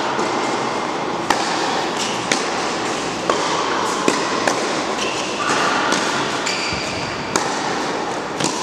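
Tennis rally: the ball popping off rackets and bouncing on the court, sharp single strikes roughly once a second, over a steady background hum of the hall.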